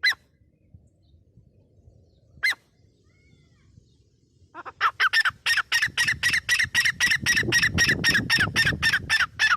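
Grey francolin calling: a single sharp note at the start and another about two and a half seconds in, then from about halfway a fast, loud run of repeated short calls, about four to five a second, that carries on to the end.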